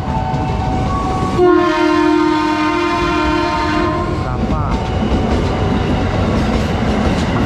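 Tokyo Metro 6000 series electric commuter train running past at close range, its wheels rumbling on the rails, with one steady horn blast of about two and a half seconds starting about a second and a half in.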